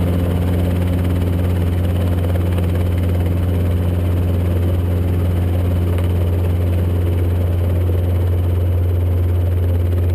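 Robinson R22 helicopter's engine and main rotor heard from inside the cockpit: a loud, steady drone with a strong low hum.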